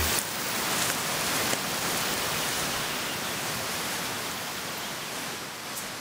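Steady, even rushing noise with no distinct events, slowly growing quieter.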